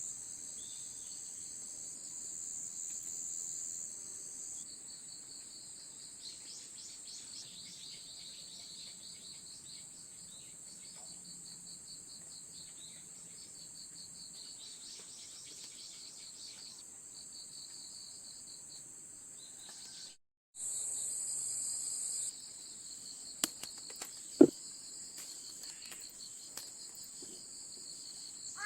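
A steady, high-pitched chorus of crickets and other insects trilling, with scattered bird chirps over it. It breaks off for a moment about two-thirds of the way through and resumes, and a single sharp knock sounds a few seconds later.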